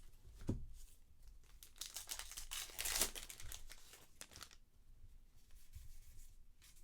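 A baseball card pack's wrapper being torn open and crinkled, a rustling burst loudest about three seconds in.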